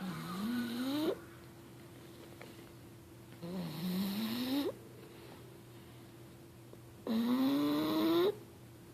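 Snoring: three long snores, one at the start, one about three and a half seconds in and one about seven seconds in. Each snore climbs in pitch from low to higher and then breaks off.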